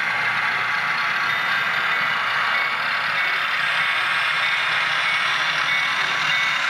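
Model trains running on the layout: a steady whir and light clatter of small electric motors and metal wheels on rail, with the lead diesel switchers of the approaching freight drawing near.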